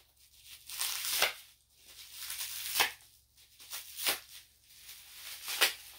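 Plastic bubble wrap rustling and crinkling as a package is unwrapped by hand, in a handful of short scraping bursts.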